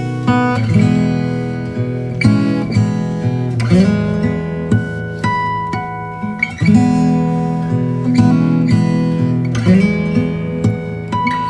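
Background music: acoustic guitar, plucked and strummed chords.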